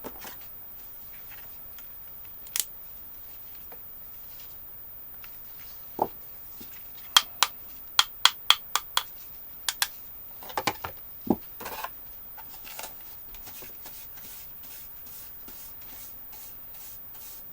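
Sharp metallic clicks of cutters snipping leftover nickel strip off 18650 cells: a single click or two, then a quick run of about nine, followed by brief scraping.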